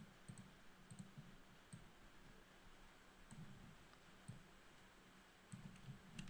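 Faint, scattered computer mouse clicks over quiet room tone.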